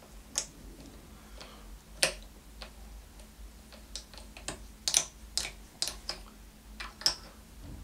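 Irregular sharp, light clicks and ticks of steel guitar strings and hardware being handled while an electric guitar is strung up loosely, not tuned to pitch. The loudest come about two, five and seven seconds in.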